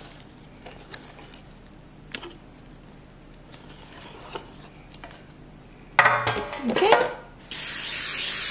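Spatula stirring banana bread batter in a stainless steel mixing bowl: faint clicks and soft scraping against the bowl. About six seconds in comes a loud, brief squeak that slides in pitch, and near the end a steady hiss of aerosol cooking spray into a metal baking pan for about a second, cutting off sharply.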